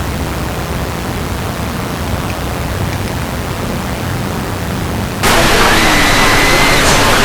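Loud static hiss that cuts in abruptly and jumps louder about five seconds in, with faint thin tones over it after the jump.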